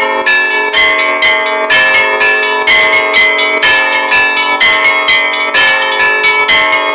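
Russian Orthodox church bells rung in a festive peal: many bells struck in a rapid, steady rhythm of several strokes a second, their tones ringing on and overlapping.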